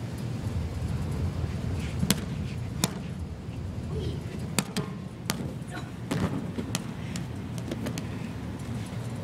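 Several sharp thuds, about six, as a large inflatable exercise ball bounces and a body falls onto padded gym mats, over a steady low rumble.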